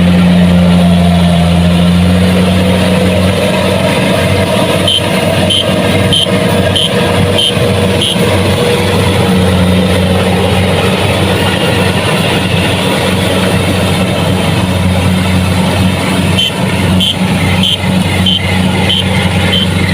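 Kubota DC-70 Plus combine harvester's diesel engine running steadily and loud. An electronic beeper sounds in two spells of regular high beeps, a little under two a second, about a quarter of the way in and again near the end.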